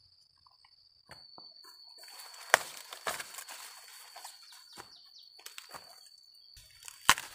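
Dry maize leaves and stalks rustling and crackling as someone pushes through a corn field, with a few sharp snaps, the loudest about two and a half seconds in and another near the end. A steady high-pitched insect buzz runs underneath.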